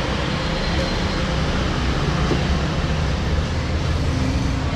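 Steady road traffic noise: an even, continuous low rumble of vehicles.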